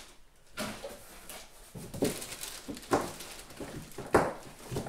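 Cardboard packaging being pulled and scraped up off a large boxed loudspeaker: rustling and rubbing of the cardboard, with a few sharp knocks, the loudest near three and four seconds in.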